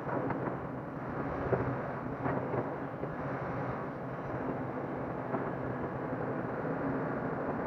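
Hyundai crawler excavator's diesel engine running steadily as the machine works, swinging its arm and dragging its bucket through loose soil, with a few short knocks.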